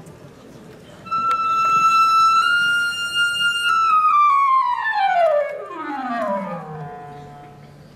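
Solo clarinet playing alone. From about a second in it holds a long high note, then slides down in one long, smooth glissando of about three octaves to a low note held near the end.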